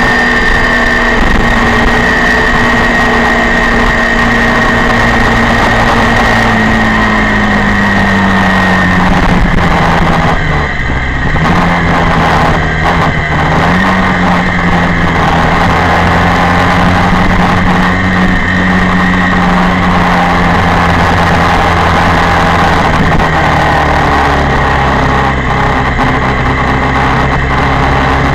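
Honda VFR400's V4 engine heard from onboard, running at steady part throttle with revs that sink slowly, dip briefly about ten seconds in and pick up again a few seconds later, over a steady rush of wind noise.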